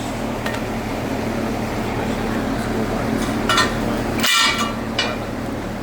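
A few sharp metallic clinks with brief ringing, the loudest about four seconds in, as hand tools knock against a metal wheel rim, over a steady background hum.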